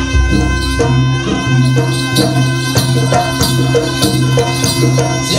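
Live jaranan music: drums and struck percussion keep a quick, even rhythm under a steady held high note and a low sustained tone.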